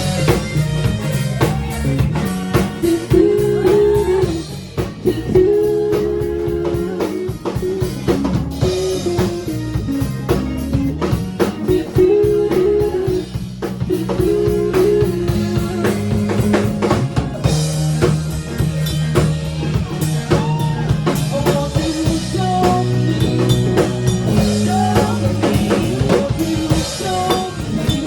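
A band playing with drum kit, bass and guitar, keeping a steady beat without a break.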